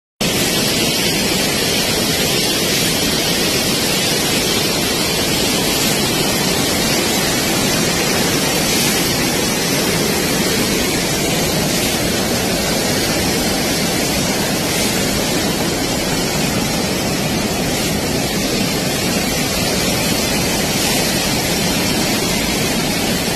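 Muddy river floodwater rushing through the sluice gates of a headworks: a steady, loud rush of turbulent water.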